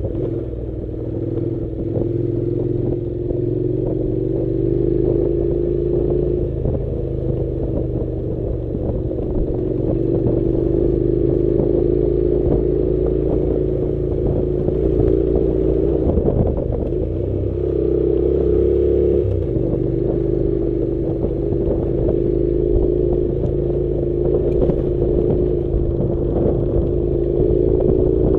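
Honda NC700's parallel-twin engine running at steady moderate revs while the motorcycle is ridden off road, its pitch wavering slightly, with a brief rise in revs about two-thirds of the way through.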